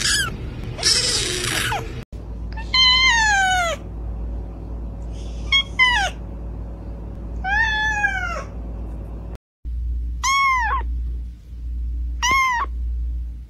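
Cats calling in a run of short clips: a kitten gives two harsh, noisy cries at the start, an adult cat meows three times, each meow falling in pitch, and a young kitten mews twice near the end in high, short calls.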